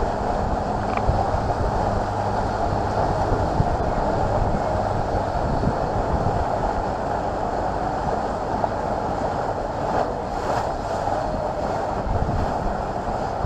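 A passenger boat under way: its engine running with a steady low hum, water rushing past the hull, and wind buffeting the microphone.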